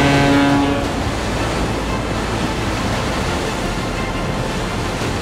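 A low horn blast that cuts off about a second in, followed by a steady rush of sea waves and wind.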